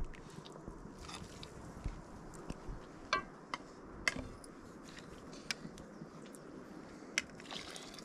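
Eating: biting and chewing with scattered short clicks and taps.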